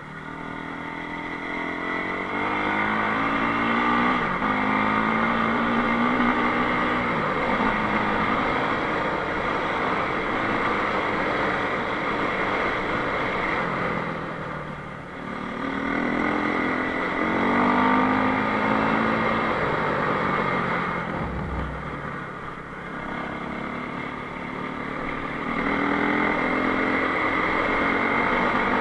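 Enduro motorcycle engine running under way, its pitch climbing and falling as it is revved up and eased off again and again; it drops back clearly about 15 seconds in and again around 22 seconds.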